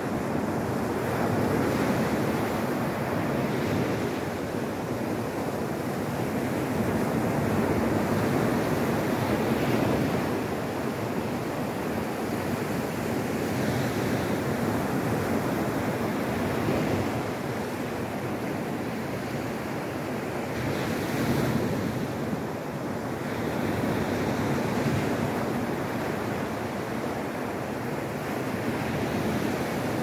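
Ocean surf: small waves breaking and washing up the beach, a continuous wash that swells and eases every few seconds.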